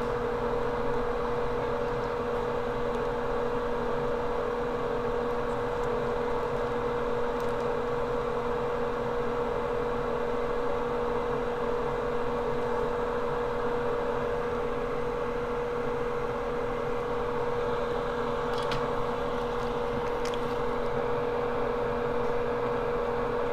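Steady hum of running workbench equipment, with a constant mid-pitched tone. A couple of faint ticks come near the end.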